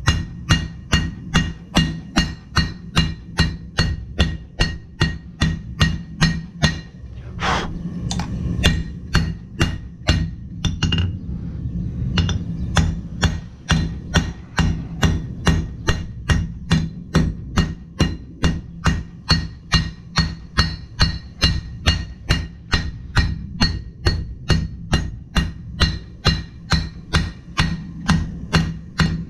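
Steady hammering on the anvil, about two blows a second, as hot steel is forged by hand. The blows break off for a few seconds near the quarter mark with a couple of scraping sounds, then resume at the same pace over a steady low hum.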